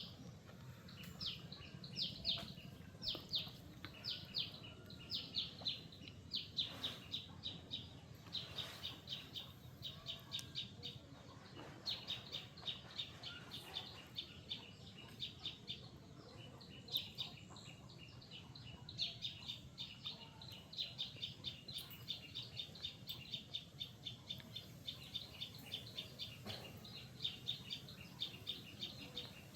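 A small bird chirping over and over in quick runs of short, high notes, with a few brief pauses, above a low steady background hum.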